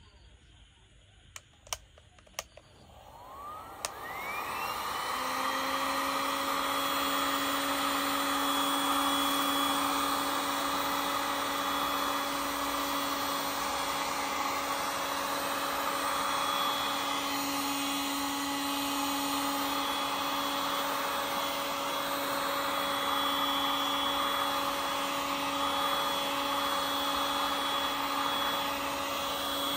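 A few clicks, then the Total heat gun's fan motor starts, spinning up with a rising whine over about two seconds. It then runs steadily, a hum and a high whine over the rush of its hot-air stream.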